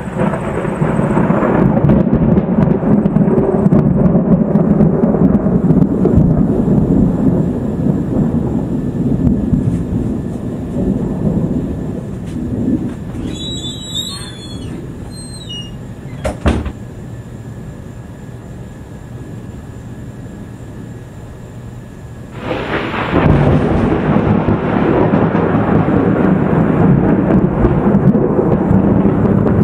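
Thunder from a dry thunderstorm: a long low rumble that rolls on and slowly dies away, then a second peal starts suddenly a little over twenty seconds in and keeps rumbling.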